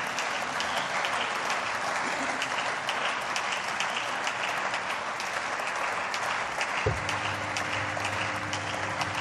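Parliamentary audience applauding: steady clapping from many hands in a large plenary chamber, just after a speech ends.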